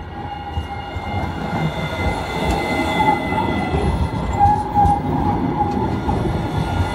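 RET Alstom Citadis low-floor tram passing close by on street track. The wheels rumble on the rails under steady whining tones, growing louder through the middle as the car body goes by.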